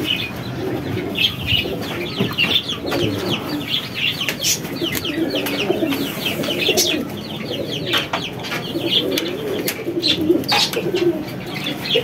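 Pigeons cooing in low, wavering calls over a busy run of rapid, high-pitched bird chirps, with a few sharp clicks.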